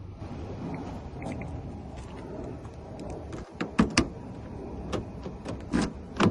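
Steady low background rumble, with a few sharp clicks or knocks: two close together about four seconds in and a couple more near the end.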